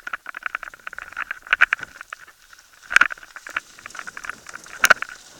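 Mountain bike clattering over rough, rutted ground: a busy, irregular rattle of chain and frame, with two hard knocks about three and five seconds in.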